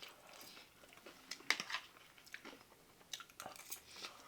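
Someone chewing crunchy snack food up close, with a few sharp crunches, the clearest about a second and a half in and a cluster a little after three seconds.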